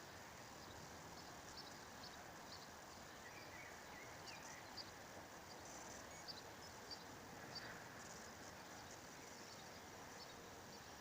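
Near silence: faint steady background hiss with about a dozen faint, short, high ticks or chirps scattered through it.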